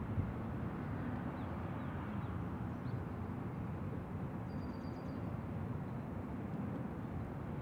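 Steady low rumble of a Southwest Airlines Boeing 737's jet engines at taxi power, with a few faint bird chirps over it.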